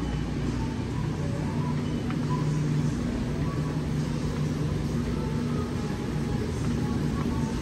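Steady low hum and rumble of a supermarket's frozen-food aisle, with a couple of level humming tones and no sharp sounds.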